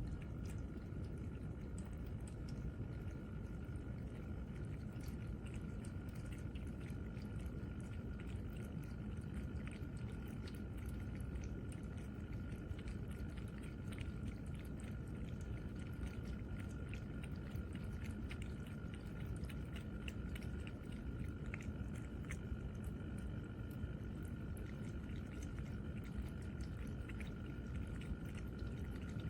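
Electric pet water fountain running: a steady pump whine under the trickle of circulating water, with many small scattered clicks and drips throughout.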